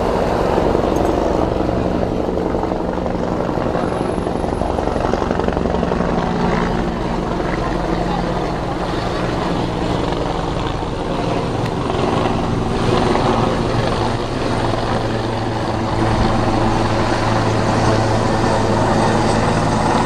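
Steady engine drone with a low hum that shifts lower partway through.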